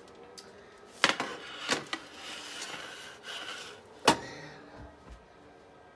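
Metal pan or rack being pulled out of a countertop air fryer toaster oven: a sharp knock about a second in, sliding and scraping, then a louder clank about four seconds in.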